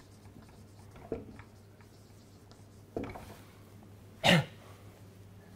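A person coughing once, loudly and sharply, about four seconds in. Two softer short sounds come before it, one about a second in and one about three seconds in.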